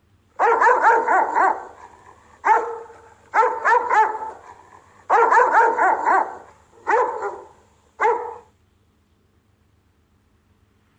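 Rottweiler guard-barking in six bursts, most of them quick runs of several deep barks, the last a single bark about eight seconds in.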